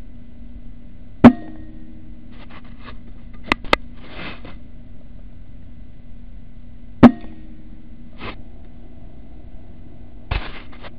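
Two air rifle shots about six seconds apart, each a sharp crack followed by a brief ring, over a steady low hum. Quieter clicks and short rustles come in between the shots and near the end.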